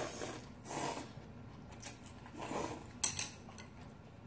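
Ramen noodles slurped in a few short bursts, with one sharp click about three seconds in.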